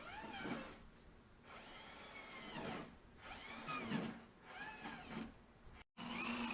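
A power tool's motor whining in a string of short pulses, its pitch rising and falling as it speeds up and slows down. A cut near the end gives way to a steadier hum.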